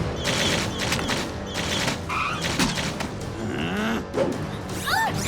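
Cartoon action sound effects: a slime bazooka firing over and over, with booms and thuds, over music.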